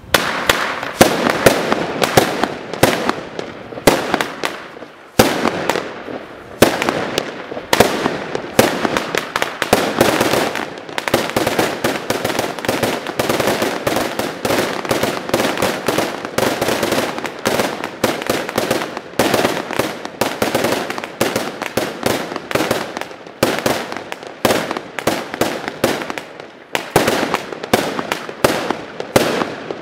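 Blackboxx 'Vogelschreck' firework battery firing: a dense, continuous salvo of rapid, overlapping bangs, starting abruptly, with a short lull about five seconds in.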